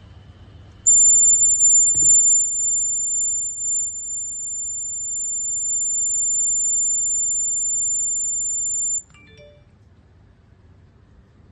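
A gas-leak alarm's buzzer sounding one steady high-pitched tone for about eight seconds, starting about a second in and cutting off suddenly, the alert that a gas has been detected. A single knock about two seconds in.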